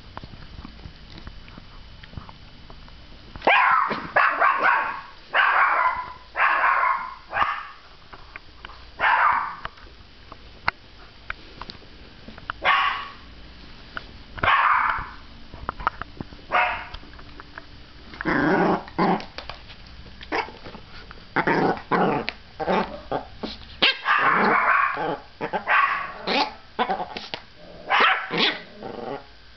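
Yorkshire terrier barking repeatedly in play, in clusters of short barks that begin a few seconds in, with lower, growling barks mixed in during the second half.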